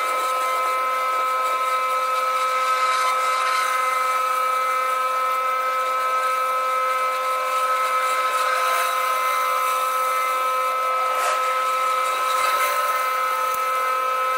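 Gas pressure washer running at a steady whine, with the hiss of water spray from a Simpson 20-inch surface cleaner pushed across concrete.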